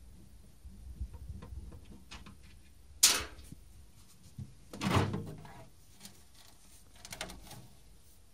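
A Vityaz CRT television being taken apart by hand: small clicks and taps, a sharp crack about three seconds in, a heavier clunk with a rattle about two seconds later, then a few more clicks.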